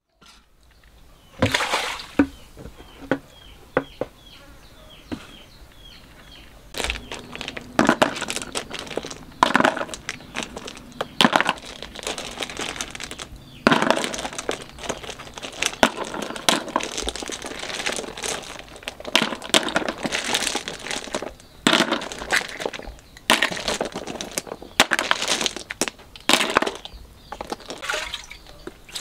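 Freshwater clam shells clattering and knocking together as handfuls are picked from a basket and dropped into a plastic basin, in irregular bursts. A run of short, falling high chirps comes a few seconds in.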